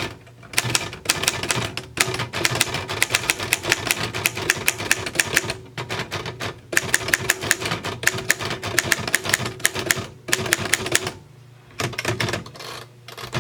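Royal FP manual typewriter being typed on quickly: two long runs of rapid key strikes with a short pause between them, then a few last strikes near the end.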